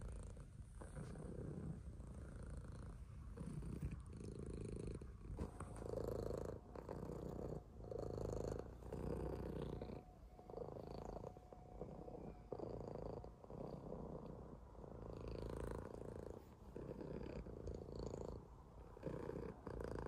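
Domestic cat purring close to the microphone while being stroked: a low, rough purr that swells and breaks off in pulses about a second long.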